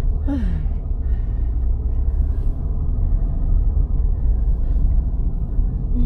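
Steady low rumble of a Land Rover Defender's engine and road noise heard from inside the cabin as it drives.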